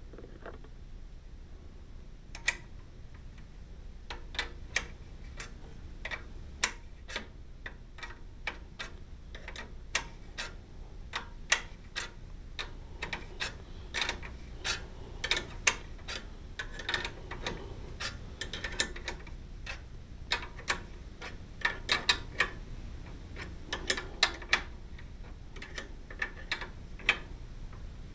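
Hand tools working on the metal awning support arm and bracket as they are put back together: irregular sharp clicks, one to three a second, with a few quick clusters near the end.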